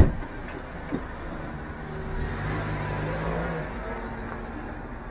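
A car door slams shut at the very start, then the small car's engine runs and rises as it pulls away, strongest in the middle of the stretch.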